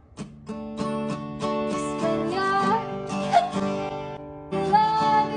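Acoustic guitar strummed with a woman singing over it, her singing broken by a couple of sudden sharp catches: hiccups.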